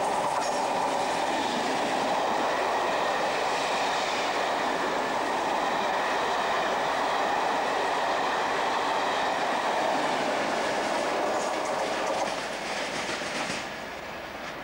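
Electric-hauled passenger train of Mk3 coaches, driving van trailer leading and locomotive pushing at the rear, running through a station at speed: steady wheel-on-rail rumble and clatter over the rail joints. The noise drops away sharply near the end as the train moves off into the distance.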